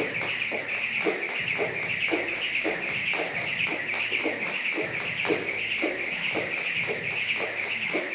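Jump rope spinning through double unders: the rope whirs and slaps the floor in a fast, even rhythm that does not let up.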